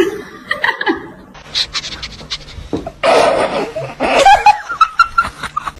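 A person laughing hard and breathily, loudest over the last three seconds. It comes after a few short clicks and knocks.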